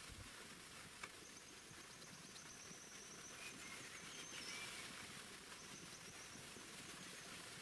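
Faint outdoor ambience with an insect's steady high-pitched trill for a few seconds, starting about a second in. A few faint short calls come during the trill, and there is a single soft click just before it starts.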